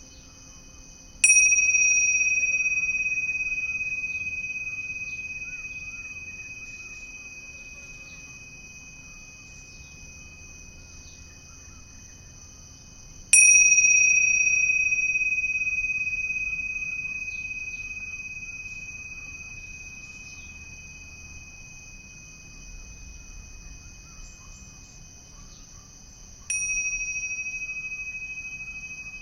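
A small singing bowl struck three times, about 13 seconds apart; each strike rings a clear, high, steady tone that slowly fades away.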